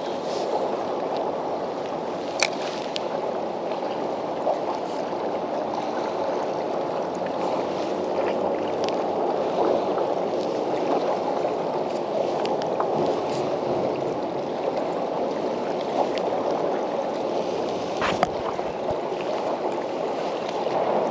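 Choppy water lapping and gurgling steadily against the hull of a Hobie Lynx pedal kayak, with a few sharp clicks, one a couple of seconds in and another near the end.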